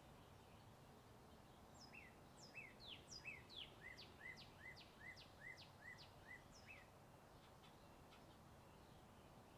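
A songbird sings a quick series of short, sharply falling whistled notes, about three a second, for about five seconds. Under it runs a faint, steady hum of distant highway traffic.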